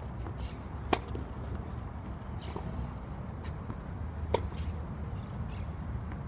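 Tennis ball struck cleanly by a racket twice, about three and a half seconds apart, with fainter pops and clicks between, over a steady low outdoor rumble.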